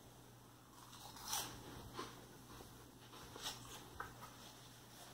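Cheese curls bitten and chewed: one sharp crunch about a second and a half in, then several softer, scattered crunches.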